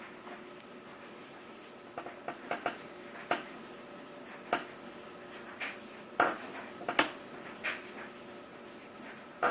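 Irregular light metallic clinks and taps, about a dozen spread over several seconds, the loudest two in the second half: small metal parts and tools knocked against a steel computer case panel during assembly.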